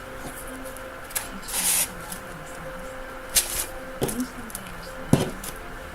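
Packaging being handled as items come out of a box: a short crinkling rustle about a second and a half in, and a few sharp taps and knocks, the loudest near the end.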